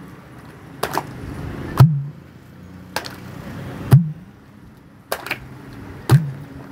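Soft, slimy matka roti dough being slapped by hand in a wide pan, in pairs: a lighter slap, then a heavier slap with a low thud. The pairs come about every two seconds, over a steady low hum.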